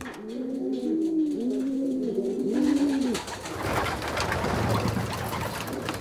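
Racing pigeons cooing: a run of low, rising-and-falling coos over the first three seconds. A rustling hiss then takes over for the rest.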